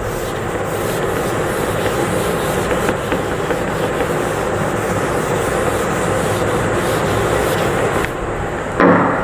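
Chalkboard being wiped clean: a steady scrubbing rub across the board that eases off about 8 s in, followed near the end by a brief louder sound.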